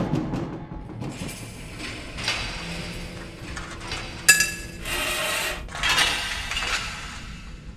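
A series of light clinks and knocks. The loudest is a sharp clink about four seconds in that rings briefly, and a short burst of hissing noise follows it.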